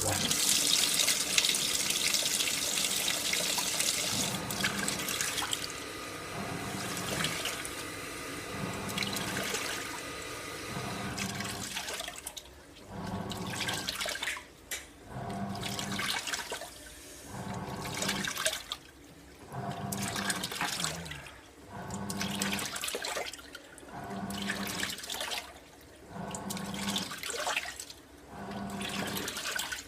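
AQUA MCW-C50 coin-operated washing machine in its fill-rinse: water rushes into the tub, loudest in the first few seconds. In the second half the pulsator agitates the rinse water in strokes about every two seconds, each with a motor hum and sloshing and a short pause between strokes.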